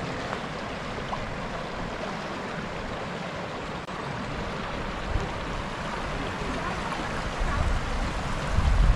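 Tanew river rushing steadily over small rapids beside a wooden footbridge, with a few low rumbles near the end.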